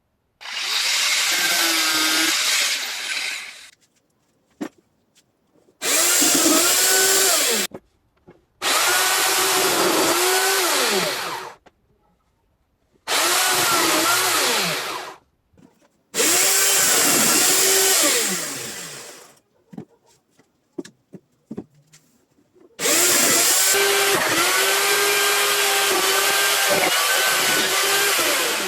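Electric chainsaw mounted in a homemade crosscut stand, cutting wood in six separate runs of a few seconds each, its motor pitch dipping and recovering within each run. Short clicks in the pauses between runs.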